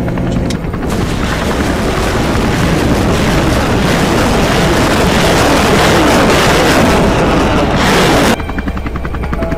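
A large explosion goes off about a second in, followed by a long, loud blast noise that cuts off abruptly about eight seconds in. Before it, a steady engine hum.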